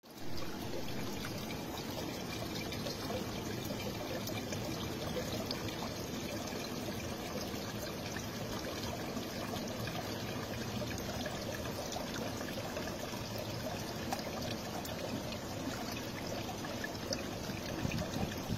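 Spring water trickling and pouring steadily, running over rocks and off a leaf spout.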